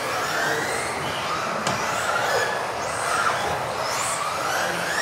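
Several electric RC off-road cars racing, their motors whining up in pitch as they accelerate and dropping back as they lift off for corners, the whines overlapping in a repeating rise and fall.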